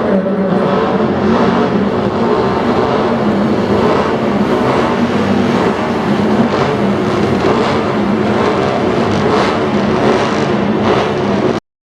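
Engines of a parade of classic racing cars and motorcycles, several running at once in a steady, dense mix. The sound cuts out completely for a moment near the end.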